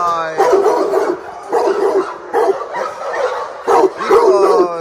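Kennel dogs barking repeatedly, about two barks a second, with a high falling whine near the end.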